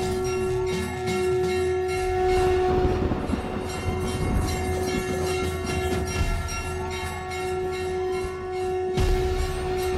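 A conch shell blown in one long steady note, breaking off near the end and sounding again, over quick festive drum and bell strikes.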